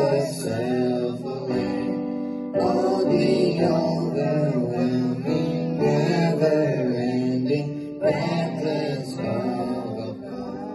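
Boys singing a worship song into microphones, accompanied on an electronic keyboard.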